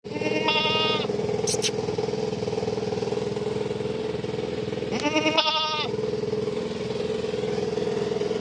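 Goat bleating twice, about half a second in and again about five seconds in, over a steady engine-like drone.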